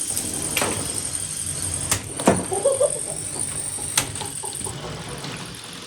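Lego combat robots fighting: a steady high motor whine with sharp plastic impacts about half a second, two, two and a half and four seconds in, the loudest near two and a half seconds; the whine stops near the end.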